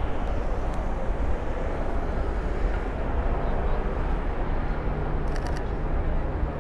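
Steady city street noise with a low traffic rumble. Near the end comes a quick burst of about four Sony A7 III shutter clicks as a portrait is taken.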